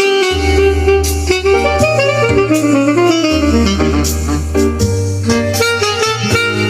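Recorded jazz music with a saxophone melody moving over sustained bass notes and cymbals.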